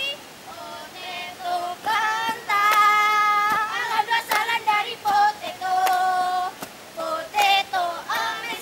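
A high-pitched voice singing, with short phrases and long held notes.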